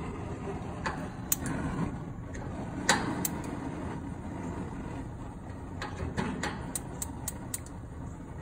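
Sharp, irregular clicks from a Weber Genesis II LX gas grill's ignition and burner control knobs as the burners are lit, about ten in all, over a steady low rumble.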